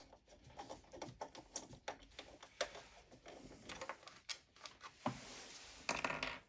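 Irregular light clicks and taps at a low level, with a short, louder pitched sound near the end.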